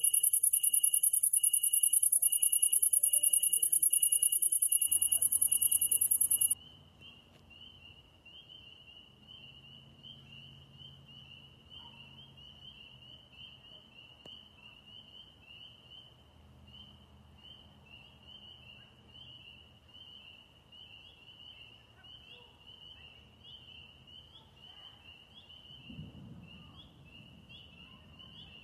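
Night insects: a loud, high-pitched rapid trill for the first six seconds or so that stops abruptly, over a steady chirping cricket that runs on throughout. Near the end there is one brief low rustle.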